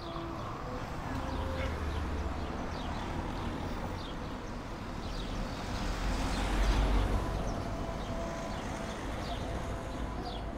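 Street traffic running steadily, with the low rumble of a vehicle passing close that swells to its loudest about six to seven seconds in. Birds chirp in short bursts throughout.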